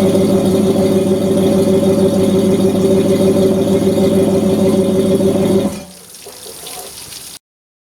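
Yamaha F350 5.3-litre V8 outboard idling steadily with fresh oil, then shut off suddenly near the end, leaving only a faint hiss of running water.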